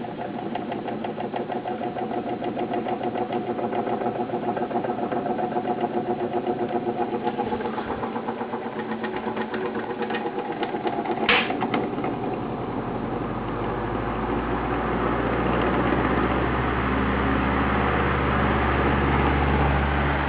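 16-inch Toshiba laptop making an unexplained mechanical noise: a fast, even rattling buzz with several steady whining tones. From about twelve seconds in, a low steady hum comes in and grows louder.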